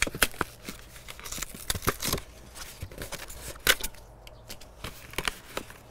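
A cardboard packet of grill cheese being handled and opened by hand, making a string of irregular crackles and clicks.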